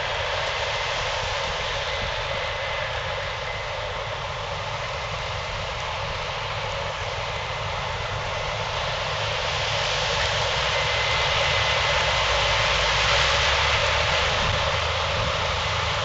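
Case IH 8120 combine harvesting corn with a tractor and grain cart running alongside: a steady mix of diesel engine and machinery noise with a faint high whine. It grows louder about ten seconds in.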